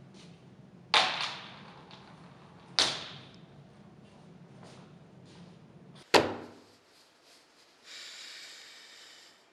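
Two loud, sharp bangs about two seconds apart, each ringing on in a large room over a steady low hum. A third, sharper bang comes about six seconds in and cuts the hum off. A short hiss follows near the end.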